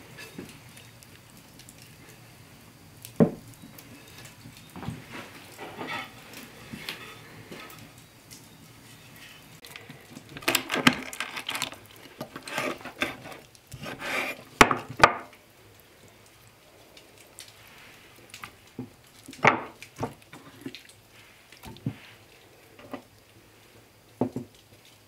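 Kitchen prep sounds of a knife cutting raw chicken into sections on a wooden cutting board: a run of cutting, scraping and clattering noises about ten to fifteen seconds in, with scattered single knocks and handling noises around it as the pieces go into a metal pot.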